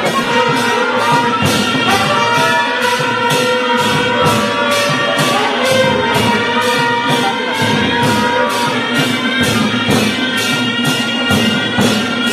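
Background music with a steady percussion beat of about two to three strikes a second under held melody notes.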